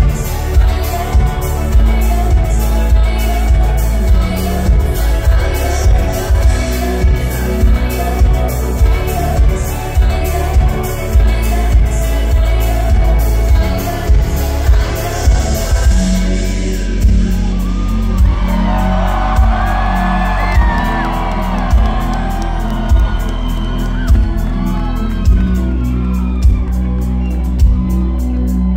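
Live band playing a dream-pop song with a steady kick-drum beat and bass under a woman's singing voice, picked up loud through a hall PA from the audience. About halfway the highs drop away and a sung melody stands out over the beat.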